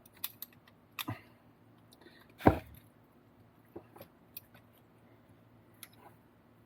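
Scattered small clicks and taps from tools and plastic kit parts being handled during RC car assembly, with one louder knock about two and a half seconds in.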